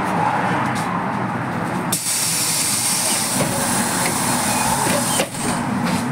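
Compressed air hissing out of the LAZ E301D1 trolleybus's pneumatic system. It starts abruptly about two seconds in, lasts about three seconds and cuts off suddenly, over the steady low hum of the trolleybus standing at a stop.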